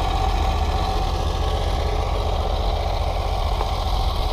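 Gas engine of a trailer-mounted pressure washer running steadily with a low, even hum.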